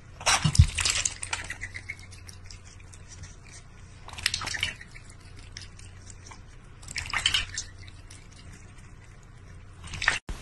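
Water splashing and dripping in a large stainless steel bowl as a duck and a cat drink and dabble in it: four short bursts of splashing about three seconds apart, with small drips between.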